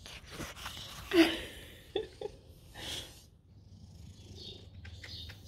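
Cat purring steadily up close, with a brief louder sound about a second in.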